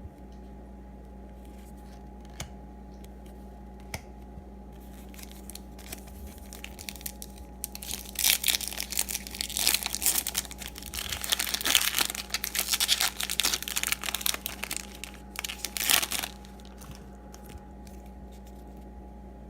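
A foil baseball-card pack wrapper being crinkled and torn open. The crackling starts about five seconds in, is loudest through the middle and stops a few seconds before the end.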